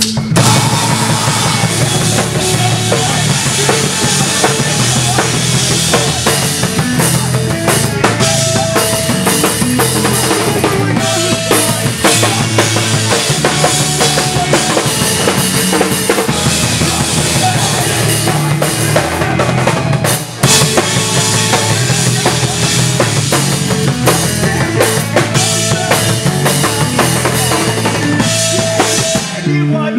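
Emo/math-rock three-piece playing loud and fast live: drum kit, bass guitar and electric guitar together, with the band kicking in at the start and stopping for a split second about twenty seconds in.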